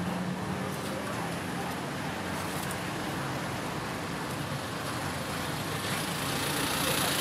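Steady street traffic noise, growing louder towards the end as a vehicle comes closer.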